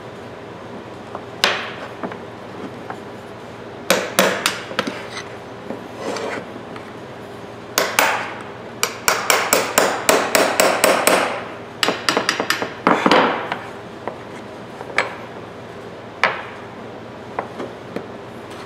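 Hammer blows on a screwdriver driven against the peened-over pivot washer of old steel slip-joint pliers, metal-on-metal knocks meant to pry the washer up so the pivot pin comes apart. The blows are irregular, with a quick run of light taps midway.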